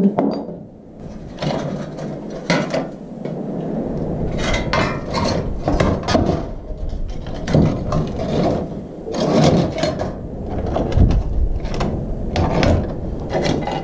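Old objects being picked up, moved and set down on a wooden tabletop: irregular knocks, scrapes and rubbing of rusty metal, glass and stiff leather on wood. A low rumble runs underneath from about a third of the way in.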